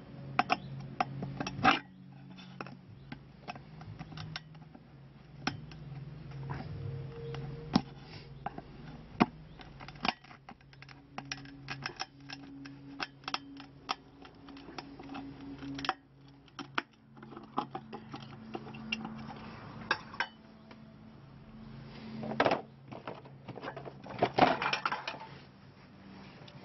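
Clicking and clattering of a metal muffin tin being flexed and knocked to free cast orgonite pucks from its cups, the hard pucks clacking against the tin and each other; the loudest clatter comes in two bursts near the end.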